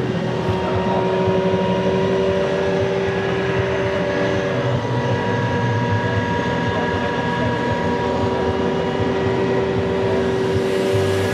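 A steady mechanical drone of a running machine, with a constant hum held at one pitch and a low rumble beneath it.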